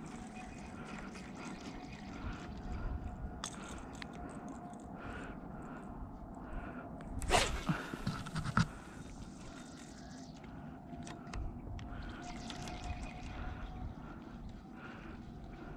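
Handling noise from a fishing rod and reel during shore casting and retrieving: faint outdoor background with scattered small clicks, and a short louder rush with a few knocks about seven seconds in.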